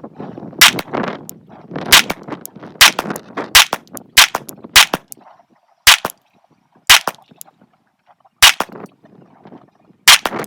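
9mm Glock 45 pistol fired slow and deliberately, about a dozen single shots at uneven gaps of roughly a second, with wind noise between the shots.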